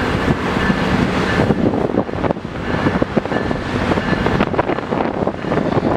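A string of diesel locomotives rolling slowly past, engines running and wheels on the rails, with wind buffeting the microphone.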